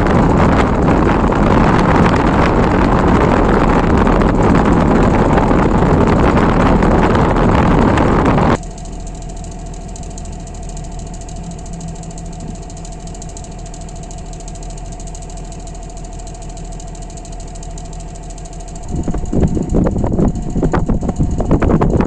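Gree air conditioner condenser fan, a 16-inch blade on its motor, running at full speed. For the first eight seconds or so there is a loud rush of air. It then drops suddenly to a quieter, steady motor hum with a faint thin whine, and the loud air rush comes back near the end.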